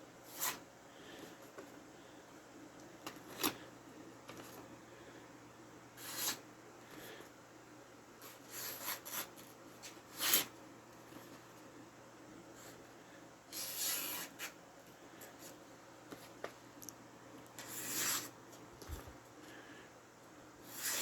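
Hatchet edge drawn in a series of brief scraping strokes a few seconds apart, in a sharpness test of the blade.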